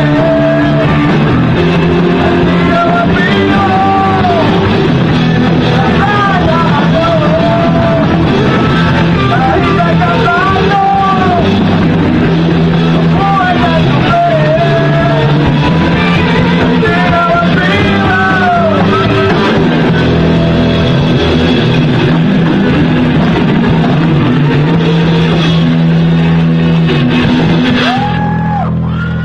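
Live rock band playing loudly, with a high lead line bending up and down over steady low bass notes. The music begins to fade out near the end.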